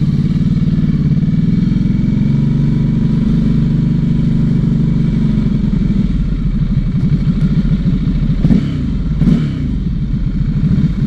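Ducati Hypermotard 796's air-cooled L-twin running at low speed through Termignoni slip-on exhausts, heard from on the bike. The revs rise and fall briefly twice near the end.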